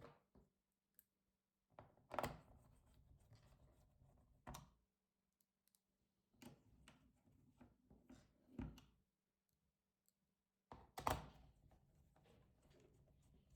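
Scattered faint clicks and knocks of an HP Pavilion 17-f notebook's plastic case and parts being handled during the upgrade work, the loudest knock about eleven seconds in, over a faint steady low hum.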